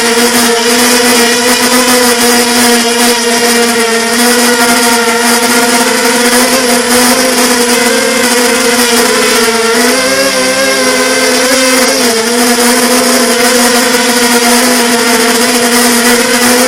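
Quadcopter electric motors and propellers buzzing in flight at a steady pitch, the tone wavering and splitting for about two seconds midway as the throttle changes.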